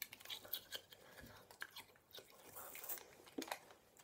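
Quiet, scattered crunches and clicks of a frozen ice lolly in a plastic tube being bitten, chewed and handled.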